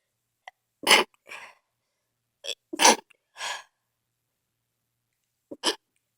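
A person sneezing in a fit: two loud sneezes about two seconds apart, each followed by a softer after-sound, then a shorter, quieter sneeze near the end.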